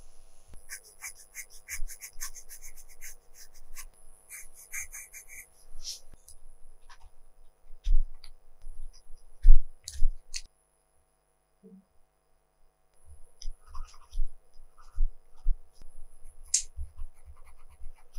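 Colored pencil strokes scratching on drawing paper in short bursts, with light taps and clicks of the pencil. There is a brief silence a little past the middle.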